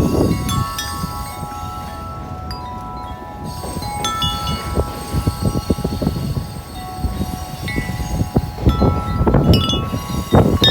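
Corinthian Bells 36-inch wind chime ringing in many overlapping, lingering tones as the wind swings it. Gusty wind rumbles on the microphone, heaviest at the start and again near the end, and calmer in between.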